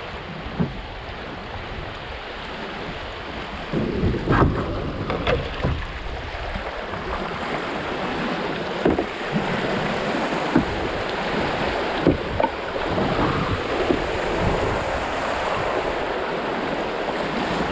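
Fast-moving creek water rushing, with a scattering of short knocks and thumps, the loudest cluster about four seconds in.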